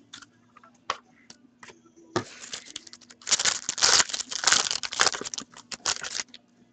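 Foil wrapper of a pack of hockey cards being torn open and crumpled: a dense crackling that starts about two seconds in and is loudest in the second half, after a few light clicks of cards being handled.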